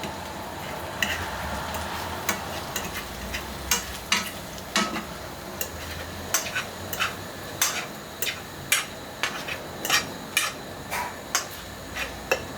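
A fork scraping and knocking against a frying pan as eggs are stirred, with frying food sizzling underneath. There are irregular sharp taps, about one or two a second, as the egg sticks to the pan.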